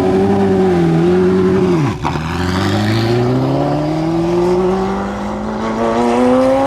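Ferrari F40 LM's twin-turbocharged V8 pulling at high revs. Its pitch drops sharply about two seconds in, then climbs steadily as the car accelerates hard.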